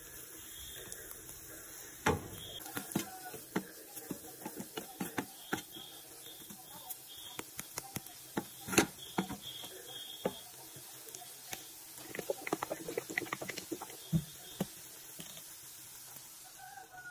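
Wooden spatula scraping and knocking against a nonstick frying pan many times while stirring frying shrimp, green onion and cracked pepper, over a steady low sizzle. The stirring knocks thin out toward the end.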